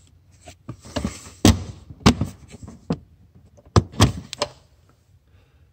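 Handling noise: a scattered series of sharp knocks and clicks, with a short rustle about a second in, as of a hand or the camera knocking against plastic interior trim.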